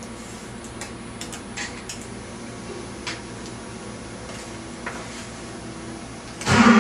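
A steady low hum with a few faint clicks, then about six and a half seconds in the 509 cubic-inch twin-turbo big-block Chevy V8 fires up on the dyno and runs loudly.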